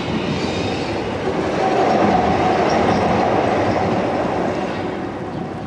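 Electric tram running past on its track: the noise of wheels and motors swells to its loudest about two seconds in and then fades away.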